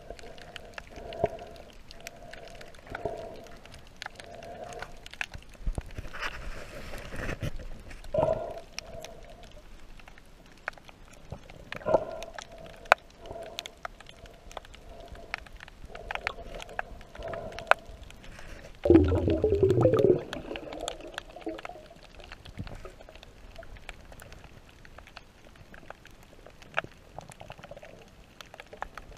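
Underwater sound picked up by a camera held beneath the surface in shallow water: scattered clicks and crackles throughout, with recurring muffled tonal bursts and one louder warbling, rumbling burst about two-thirds of the way through.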